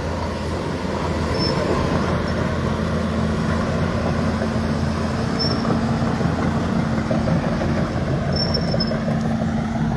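A heavy construction machine's diesel engine running steadily, with a few brief high squeaks now and then.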